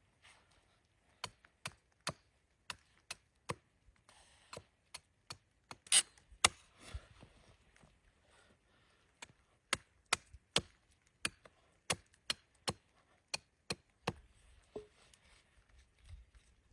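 A blade chopping: a run of short, sharp strokes about two a second, the two loudest coming close together about six seconds in.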